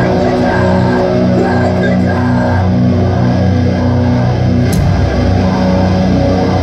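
Metalcore band playing live, with distorted guitars and bass holding long chords that change every second or two, heard from the crowd. A single sharp click sounds near the end.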